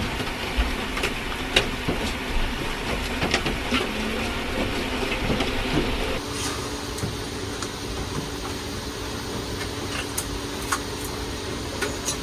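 Heavy rain falling on a campervan's roof: a steady hiss of rain with scattered sharp drip taps. About halfway through the sound changes abruptly to a thinner, lighter hiss.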